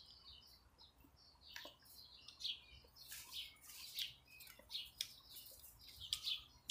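Small birds chirping in the background, a string of short high calls repeated throughout, with a couple of faint clicks.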